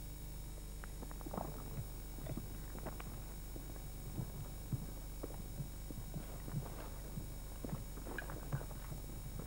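Footsteps of several people walking on a wet gravel-and-mud track: an uneven run of steps starting about a second in, over a steady low hum.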